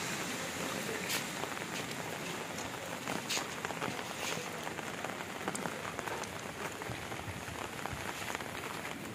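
Steady rain falling and pattering on surfaces, with scattered louder drops and a few sharper taps among the even hiss.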